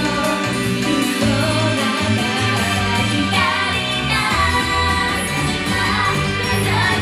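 Live J-pop idol song: a pop backing with bass and guitar, and several women's voices singing the melody together into microphones.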